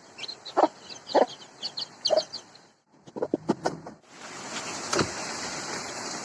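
Bird calls, short and repeated about every half second, with high chirps above them; about four seconds in they give way to a steady rushing hiss.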